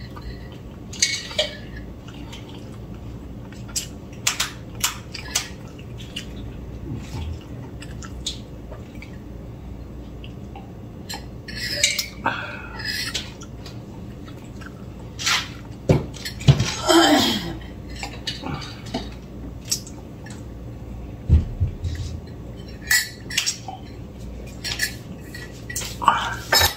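Scattered clinks and knocks of cutlery, dishes and a mug being handled at a meal table. About sixteen seconds in there is a longer, louder noisy sound that falls in pitch.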